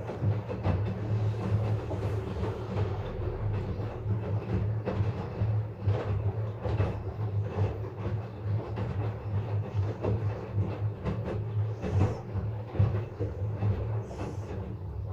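LG front-load washing machine running its rinse-and-spin cycle: a steady low motor hum with continual irregular knocking and rattling from the drum and cabinet.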